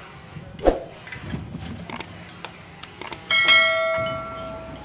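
A few sharp metallic knocks and clicks, then a heavy strike on a steel part about three seconds in that rings out with a clear bell-like tone, fading over about a second and a half.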